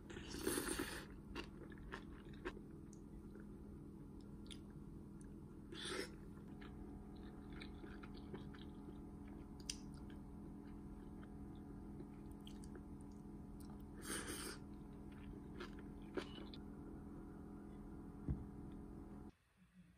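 Close-up eating sounds: chewing and biting of curry rice with kimchi, with a few louder bites near the start, about six seconds in and about fourteen seconds in, and scattered light clicks of wooden chopsticks and spoon against a ceramic bowl, over a steady low hum.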